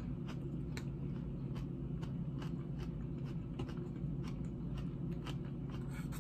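Close-miked chewing of a crunchy salad of romaine lettuce and croutons: a run of small, irregular crisp crunches over a steady low hum.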